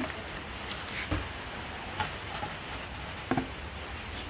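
A few scattered light knocks and clicks, the loudest a quick double knock near the end, over a low steady background noise.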